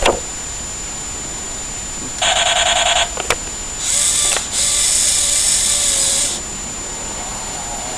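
Electronic sound effects of an M16 half-track, played through a small speaker: a short buzzy, rapidly pulsing burst, a click, then two longer rattling bursts.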